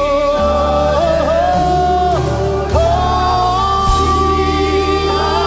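Live gospel worship song: voices singing a hallelujah refrain, holding long notes over a band's steady accompaniment.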